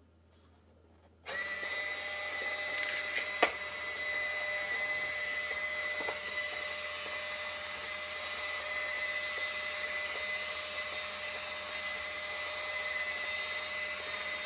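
Small geared DC motor, taken from a servo and wired directly, switching on about a second in and running steadily with a constant whine as it turns a 3D-printed turntable through bevel gears. A couple of sharp clicks come a few seconds in.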